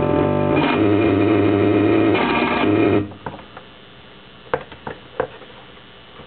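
Circuit-bent PC Junior learning computer giving out a loud, buzzy glitch drone of stacked electronic tones, which cuts off suddenly about three seconds in. A low hum and a few sharp clicks follow.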